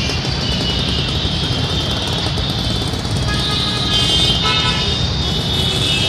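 Dense, jammed city road traffic: a steady din of motorcycle and car engines with horns honking over it again and again. Two distinct horn blasts stand out a little past halfway.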